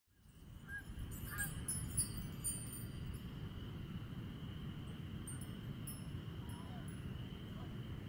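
Wind rushing steadily through bare trees, under a constant high chorus of spring peepers and a few Canada goose honks in the first two seconds. Some light, high tinkling sounds in the first three seconds. The sound fades in over the first second.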